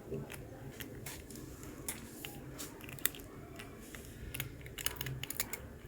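A cat crunching and chewing murukku, a crisp fried snack: irregular sharp crunches, coming thicker about four seconds in.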